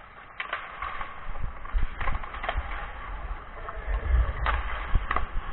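Ice hockey play: skate blades scraping on the ice and a string of sharp clacks of sticks on the puck and ice, with a low rumble growing about four seconds in.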